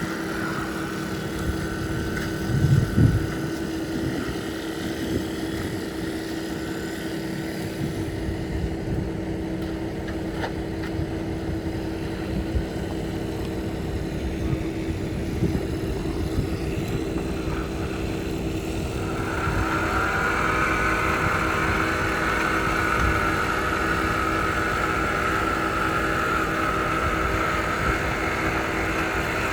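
An engine running steadily, joined about two-thirds of the way through by a steady higher whine.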